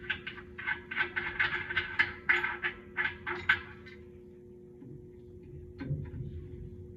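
Quick rasping strokes, about three to four a second, for a few seconds before stopping, over a steady hum.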